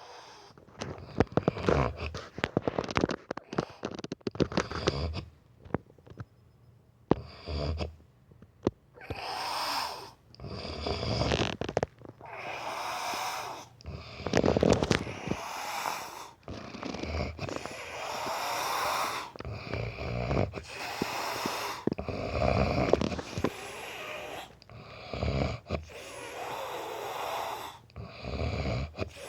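A man snoring: a series of long noisy snores, one every second or two, from about nine seconds in, after a quick run of clicks in the first few seconds.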